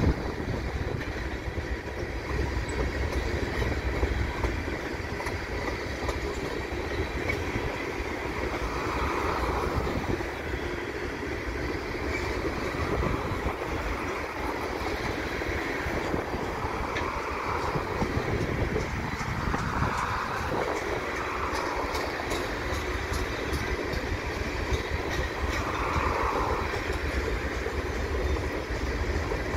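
Freight train of tank cars and boxcars rolling past, its steel wheels on the rails making a steady rumble.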